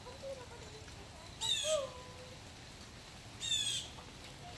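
Blue jay giving two harsh, half-second jeer calls about two seconds apart, with rain falling in the background.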